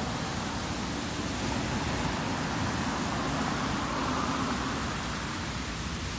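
Fountain water jets splashing down into the basin, a steady rushing hiss that swells slightly about four seconds in.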